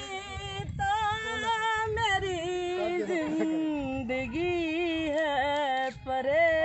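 A woman singing a Hindi film song unaccompanied, drawing out long held notes with a wavering pitch.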